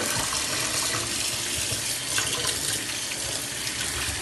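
Kitchen tap running in a steady stream into a stainless steel sink, splashing over pieces of salt cod being rinsed by hand to wash out the salt.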